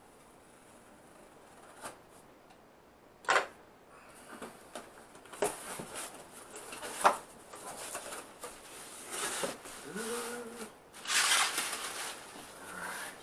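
Cardboard box being opened with a box cutter: sharp clicks and scrapes as the blade slits the packing tape, then rustling, scraping and tearing as the cardboard flaps are pulled apart, loudest about eleven seconds in.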